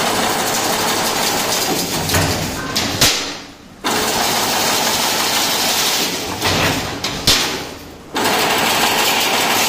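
Semi-automatic chain link fence machine running, a steady mechanical whirr as it forms the wire. About three seconds in and again near seven seconds a loud knock comes, the noise dies away for under a second, then starts again abruptly, in a repeating work cycle.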